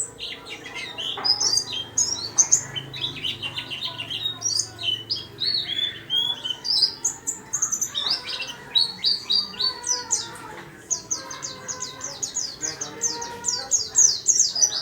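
A caged white-eye (pleci) singing busily: a long string of high, thin chirps, each a quick downward slide, in jumbled phrases at first and then a fast, even run of notes from about ten seconds in.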